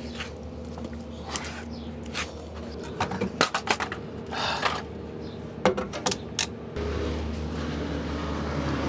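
Scattered clicks, knocks and rustling of hand work on fuel line fittings under a truck, over a steady hum that gets louder about seven seconds in.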